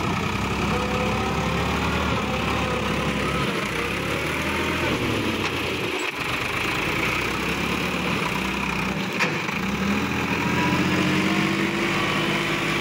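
Sonalika DI-50 RX tractor's diesel engine running steadily under load as it hauls a loaded trolley through mud, its note rising slightly near the end.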